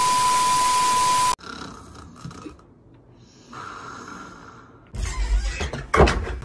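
A glitch-transition sound effect, a steady beep over static hiss, cuts off sharply after about a second and a half. Then a person snoring faintly, followed by louder knocks and rustling near the end.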